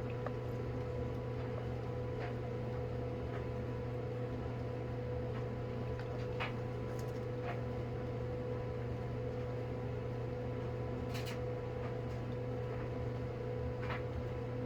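Steady room hum from a running fan or similar electrical appliance, with a constant low drone and a fainter higher tone. A few faint light clicks or taps sound now and then, about two seconds in, near the middle, around eleven seconds in and near the end.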